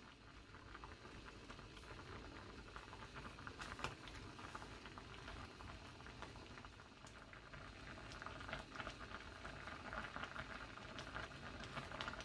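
Pot of food bubbling at a simmer: a soft, steady crackle of small bubbles, with one sharper click about four seconds in.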